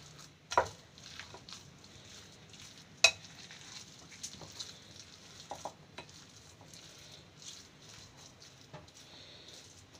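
Metal spoon stirring a thick curd and paneer mixture in a glass bowl, with scattered light clicks. There are two sharper clinks of the spoon against the glass, about half a second in and about three seconds in; the second is the loudest.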